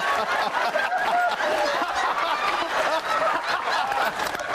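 Studio audience laughing and chuckling, many voices overlapping without a break.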